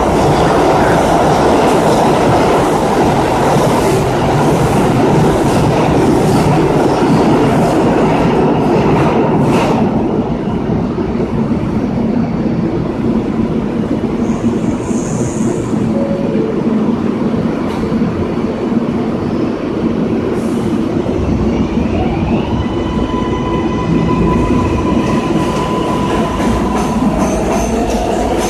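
New York City Subway R142A train running through the station: loud wheel-on-rail rumble and clatter for about the first ten seconds, then quieter. About two-thirds of the way in, the electric traction motors start a whine that rises in pitch and then holds steady as the train accelerates.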